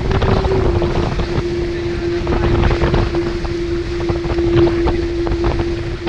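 Diam 24 trimaran sailing fast in strong wind: wind buffeting the microphone over rushing water and repeated splashes of spray against the hull, with a steady humming tone throughout.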